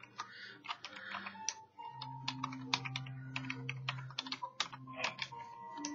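Typing on a computer keyboard: irregular keystroke clicks as a note is typed in.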